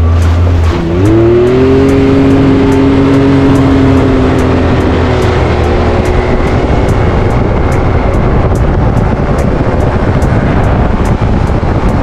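Quad ATV engine running under way, loud. About a second in its pitch dips briefly, then climbs and holds steady.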